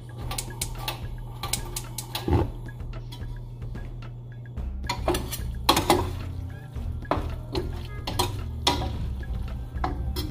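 Cooking utensils clinking and scraping against a stainless steel sauté pan while noodles are stirred and tossed, with many sharp clinks throughout. The loudest come about six seconds in and again near nine seconds.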